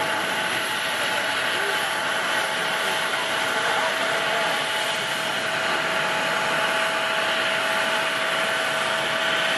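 Steady airport ambience: a constant rush of jet engine noise with a steady whine, unchanged throughout.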